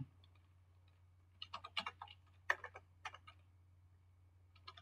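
Computer keyboard keys clicking in short scattered taps as characters are typed, over a faint steady low hum.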